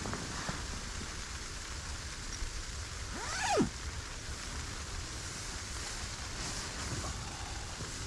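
Steady hiss of the snowstorm wind against the tent, with the nylon sleeping bag rustling as it is pulled up and settled over the sleeper. About three seconds in, a brief squeak slides sharply down in pitch.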